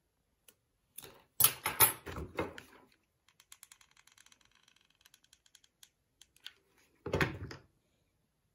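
Craft materials and a hot glue gun handled on a plastic-covered worktable. About a second in there is a cluster of knocks and clatter, then a run of light, rapid clicks, and one more knock near the end as a thin MDF fence piece is pressed into the frame.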